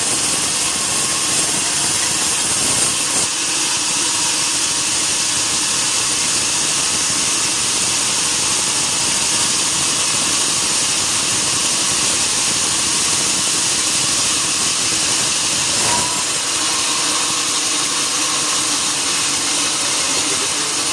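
Sawmill saw running steadily, a continuous machine noise with a strong hiss.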